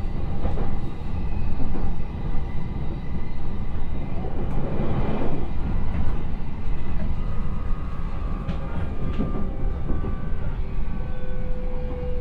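E129 series electric train running at about 50 km/h on long welded rail, with the steady rumble of wheels on rail that a grinding car has left with a ground pattern. Partway through, the brakes come on and a faint whine from the Toyo Denki IGBT-VVVF inverter and MT75B traction motors comes in under the rumble.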